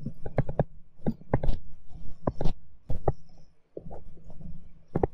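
Pen tip tapping and clicking on a tablet screen while handwriting, an irregular run of sharp clicks over a steady low hum.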